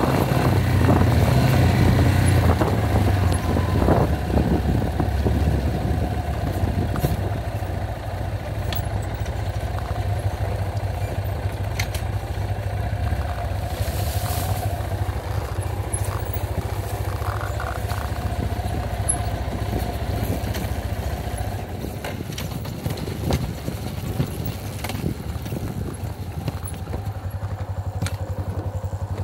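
Motorcycle engine running steadily while riding slowly along a dirt road, loudest in the first few seconds and easing off near the end.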